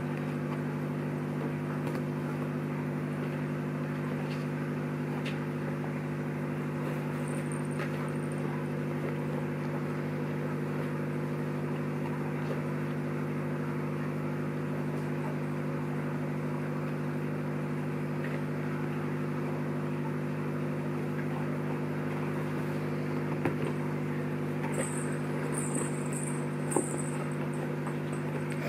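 Steady electric motor hum. Near the end there are a few light clicks and brief jingles of small bells.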